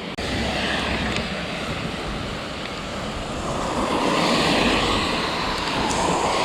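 Steady rushing noise of heavy rain and wind on the microphone, growing louder about four seconds in.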